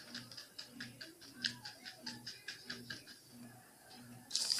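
A stiff-bristled paintbrush dabbing paint onto paper in quick taps, about six a second, then a louder scratchy brushing near the end.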